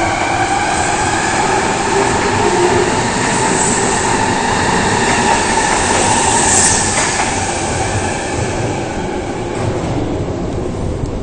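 Osaka subway 22 series electric train pulling away. Its motor whine rises in pitch over the first few seconds, over the rumble of the wheels, and the sound fades as the train draws away near the end.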